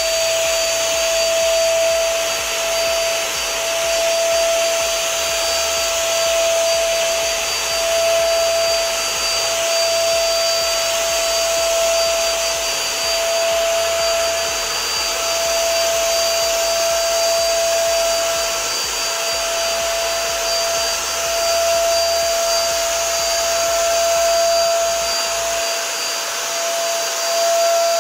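VIVREAL 400 W electric HVLP paint sprayer running steadily while it sprays paint onto a wall: a constant whine from its motor-driven blower over a rush of air.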